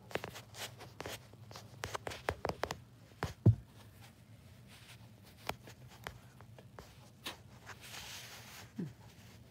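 Handling noise from a phone held against a window frame: scattered clicks and rubbing, with one loud low thump about three and a half seconds in.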